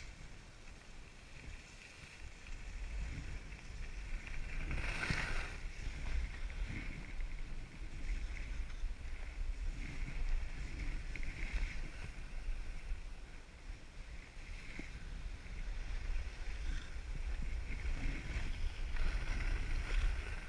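Skis sliding and scraping over snow on a downhill run, with wind rumbling on the camera's microphone. It gets louder over the first few seconds as speed picks up, with a brief louder scrape about five seconds in.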